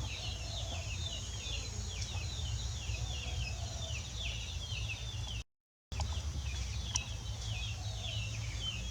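A bird chirping over and over in short falling notes, a few a second, over a steady low hum. The sound cuts out completely for about half a second around the middle.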